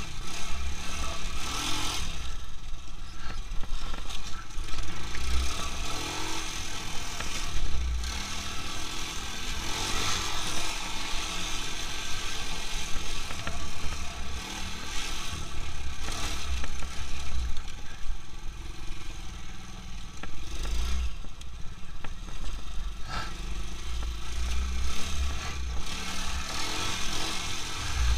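Quad bike (ATV) engine running as it is ridden along a snowy track, its pitch rising and falling with the throttle, over irregular low rumbling.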